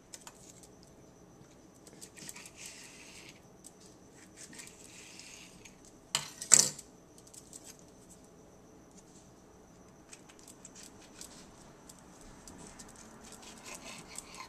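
Knife slicing a raw red bell pepper: light crisp cuts and soft taps of the blade on the counter, with two sharp louder knocks about six seconds in.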